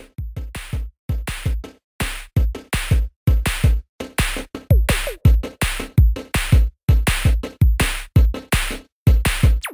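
Electronic background music with a punchy drum-machine beat: fast kick and snare hits in a stop-start rhythm that drops out briefly a few times.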